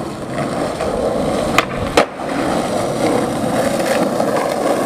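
Skateboard wheels rolling over asphalt, a steady rumble, with two sharp clacks about half a second apart early in the second second.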